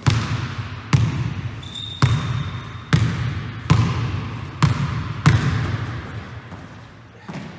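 Basketball dribbled on a wooden gym floor: about seven hard bounces, roughly one a second, each echoing in the large hall. There is a brief high squeak about two seconds in.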